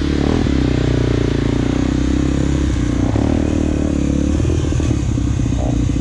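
Off-road trail motorcycle engine running under changing throttle, its pitch rising and falling as the revs vary.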